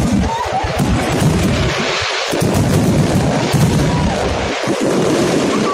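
Aerial fireworks bursting in a dense barrage: many rapid, overlapping bangs and booms with a continuous low rumble.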